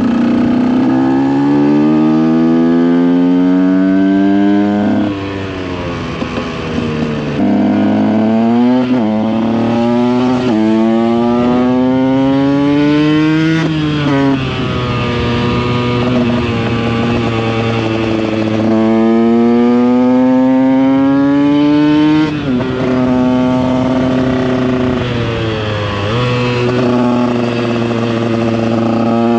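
Motorcycle engine pulling through the gears. The pitch climbs steadily and drops sharply at each upshift, around five times, with stretches of steadier running and easing off in between.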